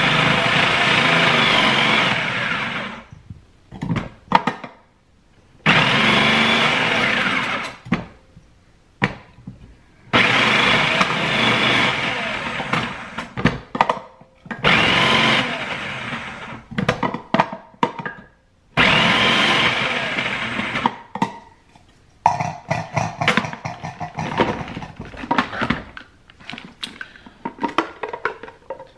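Electric food processor shredding peeled red potatoes, switched on in five loud runs of a few seconds each with short pauses between. After the last run come irregular plastic clicks and rattles as the bowl, lid and feed tube are handled.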